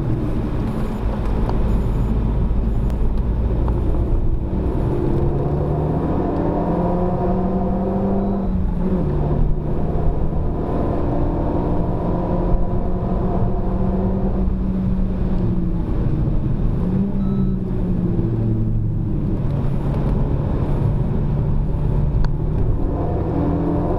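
Renault Mégane RS250's turbocharged four-cylinder engine, heard from inside the cabin, pulling hard on track. Its pitch climbs under acceleration and drops at each gear change, several times over, under a steady haze of tyre and wind noise.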